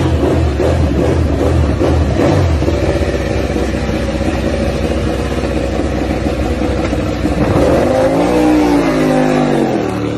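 MotoGP race bike's four-cylinder engine running at a fast idle, uneven at first and then steady, with throttle blips about three quarters of the way in that swing the pitch down and back up.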